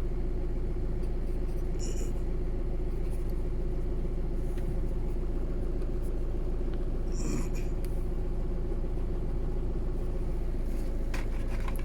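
Steady low background rumble with a constant hum tone, and two faint brief rustles about two seconds in and again past the middle.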